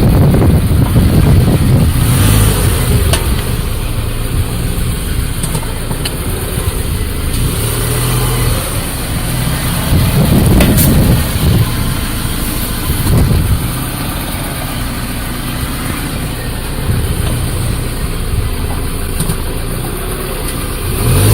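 2014 Subaru Crosstrek with a steady low rumble, and a few brief groans that rise and fall in pitch about halfway through and again near the end: the brake noise the car is being recorded for.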